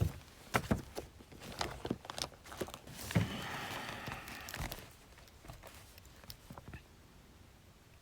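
Paper and stationery being handled on a desk: a series of sharp taps and knocks, then paper rustling for about a second and a half a little after three seconds in, settling to faint scattered ticks.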